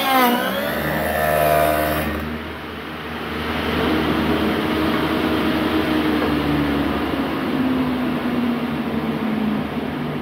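Table saw with a dado stack plunge-cutting a handhold in a wooden box panel: the spinning blade is raised up into the board, the motor's pitch dropping sharply as it bites, with a harsh cutting noise for about two seconds. Then the saw runs on, winding down with a hum slowly falling in pitch.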